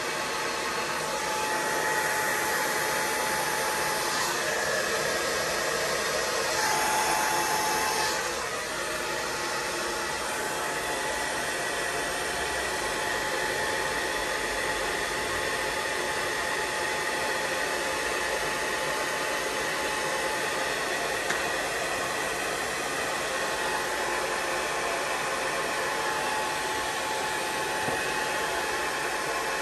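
Steady blowing hiss of an electric hot-air blower running continuously, a little louder in the first eight seconds, with a faint whine running under it.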